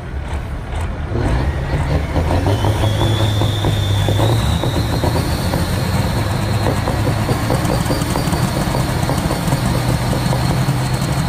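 Semi-truck diesel engines revving hard at the start line, running loud and steady from about a second in, with a high whine that climbs in pitch a few seconds in.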